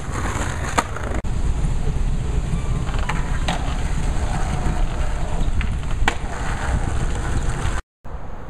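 Skateboard wheels rolling over concrete and asphalt, with a few sharp clacks of the board hitting the ground, spread through the clip.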